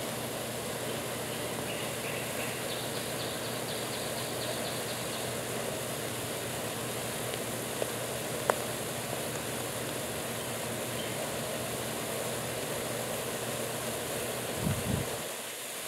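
Salt water in a bucket at a rolling boil, heated directly by AC passed between two metal electrodes drawing about 20 amps: a steady bubbling, hissing noise. A single sharp click comes about eight and a half seconds in, and a short low thump comes near the end.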